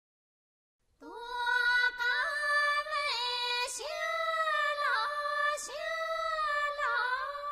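A high woman's voice singing unaccompanied, holding long notes that slide down between them, after about a second of silence.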